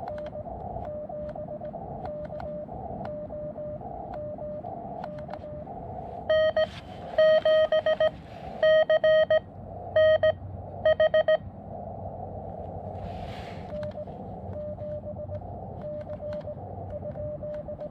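Morse code (CW) tones from a portable ham radio transceiver, keyed on and off at a single pitch over receiver hiss. A fainter signal keys throughout, and a much louder one sends from about six to eleven and a half seconds in.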